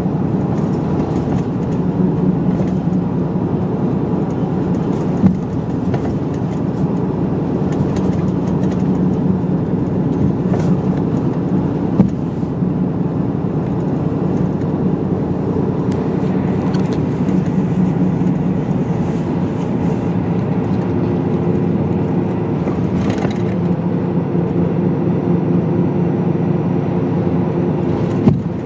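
Inside a medium-size route bus under way: a steady engine drone and road noise, with a few sharp knocks or rattles from the cabin, one about five seconds in and another near twelve seconds.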